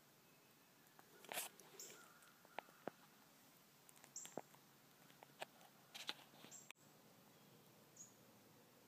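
Near silence broken by scattered faint clicks and rustles, with a few very short, high chirps.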